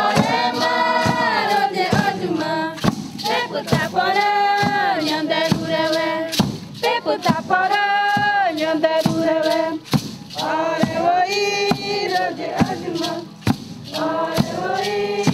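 A group of Tupi-Guarani men and women singing a chant together in repeated phrases a few seconds long, over a steady percussion beat of about two strikes a second.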